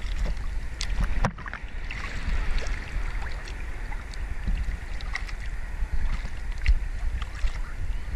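Seawater sloshing and splashing around and against a camera held at the surface, with a low rumble of water and wind on the microphone and many small splashes. A sharper splash comes about a second in.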